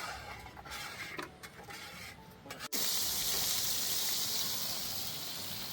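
Burger patties frying in a pan, a steady sizzle that starts abruptly about halfway through, after a few short scattered handling noises.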